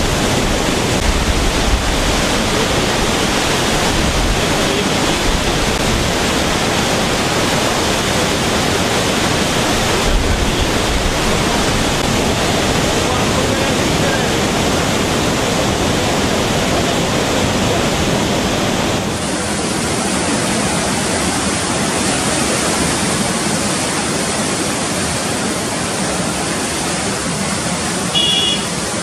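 Kosi River floodwater rushing and churning through the barrage, a loud, steady noise of heavy turbulent water, slightly quieter after about two-thirds of the way through. A brief high-pitched tone sounds near the end.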